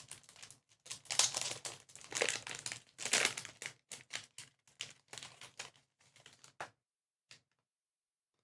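Trading cards being slid and flicked against each other in the hand: a quick run of papery swishes and clicks that stops about seven seconds in, with one last flick after.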